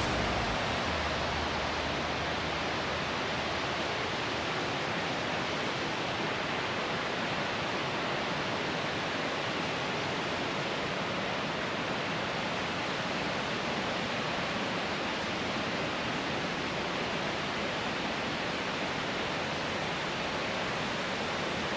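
Steady rush of waterfall water, an even noise without rhythm or breaks.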